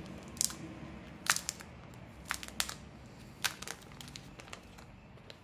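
Thin clear plastic protective film being peeled off a new smartphone and crinkled in the hands: sharp, irregular crackles.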